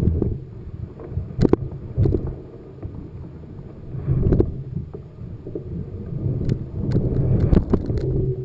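Wind buffeting a camera microphone in uneven gusts on a moving mountain bike, with repeated sharp knocks and rattles of the bike jolting over a rough trail.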